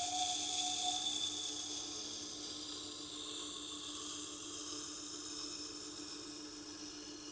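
Lawnmower blade held against the turning wheel of a Tormek T8 sharpener: a steady hissing grind over the machine's motor hum, slowly easing off in level.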